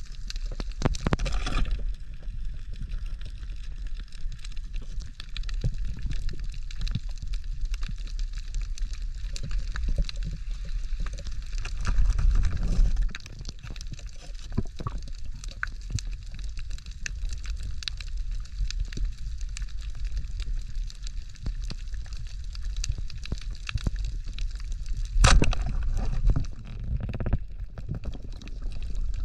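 Water splashing and sloshing over a steady low rumble, with scattered clicks and a sharp, louder burst about twenty-five seconds in.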